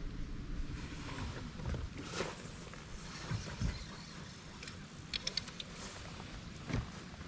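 Low, steady outdoor rumble in a small fishing boat, with a few light clicks about five seconds in and a soft thump near the end.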